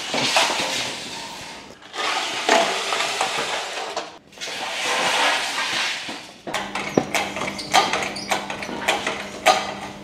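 Motorcycle shipping crate and its packaging being handled as the bike is lifted out: three long stretches of rustling and scraping, then a run of sharp knocks and clicks over a steady low hum.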